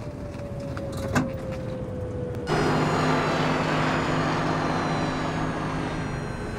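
Vintage fire engine's engine running, heard as a drone with a faint, slowly falling whine and a single click about a second in. About two and a half seconds in, it changes abruptly to a louder, rougher engine sound as the old fire trucks drive along the road.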